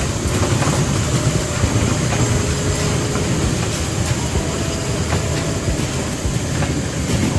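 Children's mini train ride, a small locomotive pulling open carts, running along its steel rail track: a steady low rumble of wheels on the rails.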